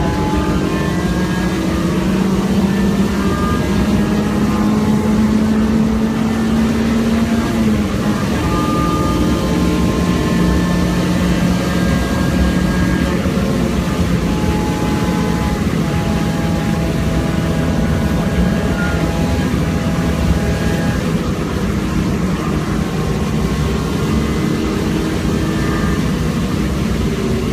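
A car's engine running hard at speed, heard from inside the car over steady road and tyre noise on a wet track. The engine note climbs, then steps down sharply about eight seconds in, and keeps rising and falling as the car works through the lap.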